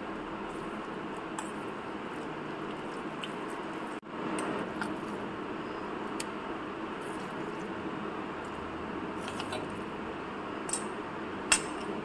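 A steel spoon working thick, wet rice-and-semolina dosa batter, scraping and tapping against a steel bowl and a steel mixer jar, with a few sharp metallic clicks, the sharpest near the end, over a steady background hiss.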